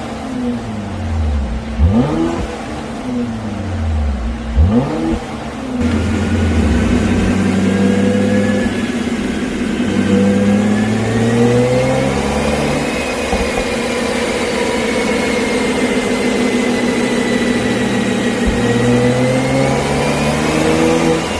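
Mercedes-AMG GLC43's twin-turbo V6, fitted with a pop-and-crackle exhaust tune, revved in quick blips about every two and a half seconds with a sharp crack near the top of each. After about six seconds it settles into a steady run, its pitch climbing and dropping in steps.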